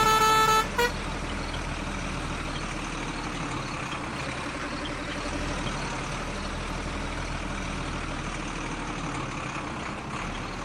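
A short melodic horn tune cuts off about a second in, followed by a steady vehicle-engine-like running drone.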